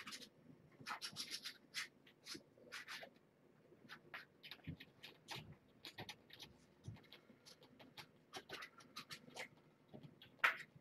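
Kittens scampering and clawing at play: faint, irregular scratches and scuffs of small claws and paws on carpet and a scratching post, with a louder scrape near the end.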